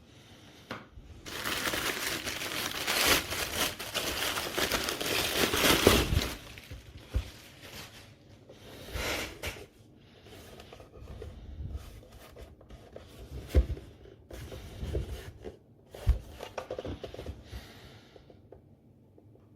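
Packaging being crinkled and handled: a loud stretch of crinkling and rustling for about five seconds, then scattered knocks and softer rustles.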